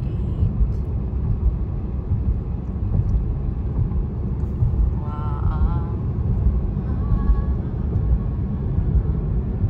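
Steady low road rumble of a car driving at speed, heard from inside the cabin: tyre and engine noise.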